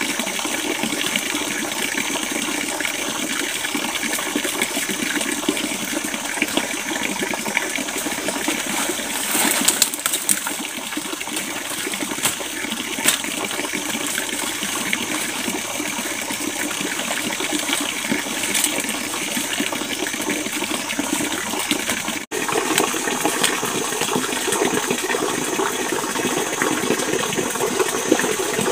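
Steady rushing of flowing stream water, an even loud wash of noise, with a few brief sharp ticks and rustles of leaves and stems being handled. The sound drops out for an instant about two-thirds of the way through.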